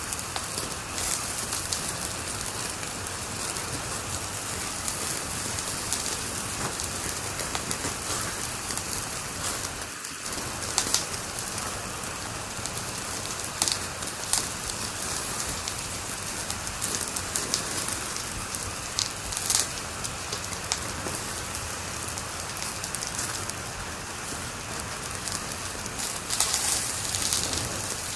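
Wood fire burning in a fireplace: a steady hiss with scattered sharp crackles and pops, a few louder ones about eleven seconds in and near the end.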